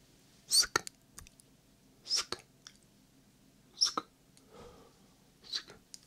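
Whispered 'sksk' mouth sounds made close to a binaural microphone: four short hissing bursts, each with small wet mouth clicks, coming about every second and a half.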